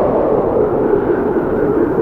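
Blizzard wind blowing steadily, a heavy low rushing noise that swells and eases slightly.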